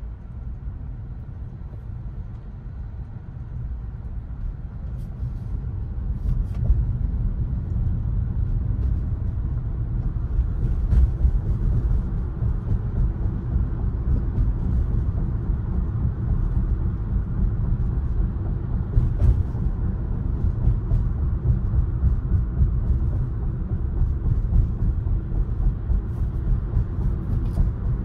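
Road and tyre rumble of a Tesla Model Y driving, growing louder over the first seven seconds or so, then steady.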